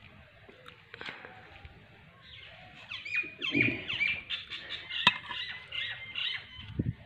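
Birds calling in a busy run of short chirps and squawks from about two seconds in, with a sharp metallic click about five seconds in as the ladle knocks the aluminium pot while the biryani is stirred.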